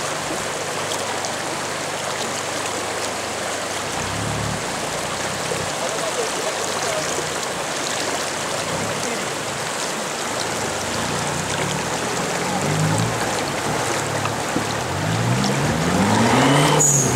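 Rushing, rippling river water with a Toyota Hilux pickup's engine running low and steady, then revving up and down repeatedly in the last few seconds as the truck drives through the rocky river.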